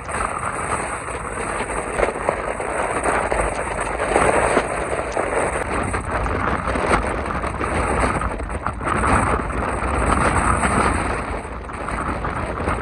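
Squally storm wind buffeting the microphone, over the continuous rumble and wash of heavy surf breaking on the Black Sea shore.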